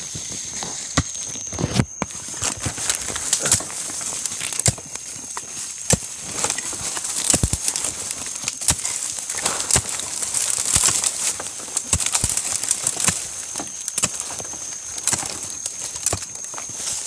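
Someone pushing on foot through dry scrub: leaves and brush rustle and crackle, with many sharp snaps and knocks of twigs and branches. A thin steady high tone runs behind it.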